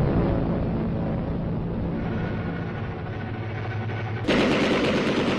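Propeller warplanes' piston engines drone steadily. About four seconds in, a sudden loud blast of noise breaks in and goes on to the end.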